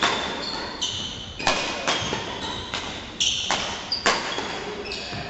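Badminton rally: rackets striking the shuttlecock with sharp hits every half second to second, echoing in a large sports hall, with short high squeaks of court shoes on the wooden floor between hits.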